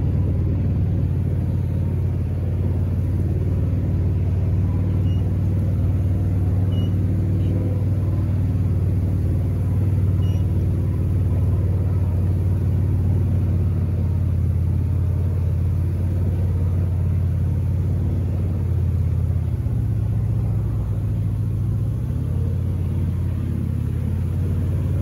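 Boat engine running steadily, a low drone whose pitch shifts slightly about twenty seconds in.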